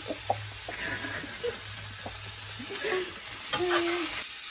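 Chopped vegetables (onion and broccoli) sautéing in oil in a pan, sizzling as they are stirred, with several knocks of the utensil against the pan in the first half second. About three and a half seconds in there is a sharp scrape followed by a short pitched tone.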